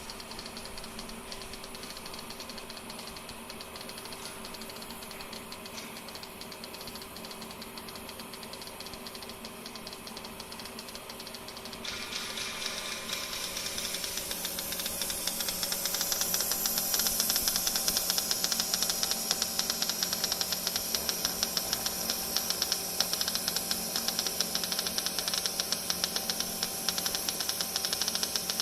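A steady machine hum runs throughout. About twelve seconds in, a plasma welding arc strikes and burns with a dense, fast crackling hiss that grows louder, then cuts off suddenly near the end.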